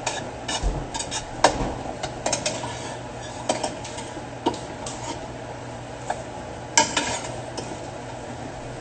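Kitchen clatter: scattered clicks and taps of utensils against dishes as food is handled, over a steady low hum.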